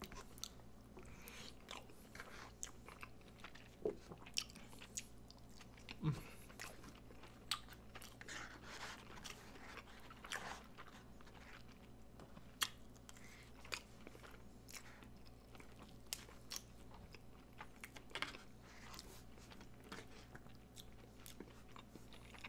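Close-up eating sounds: a person chewing a mouthful of hamburger patty, egg, rice and gravy, with soft wet smacks and scattered small clicks of the mouth and utensils.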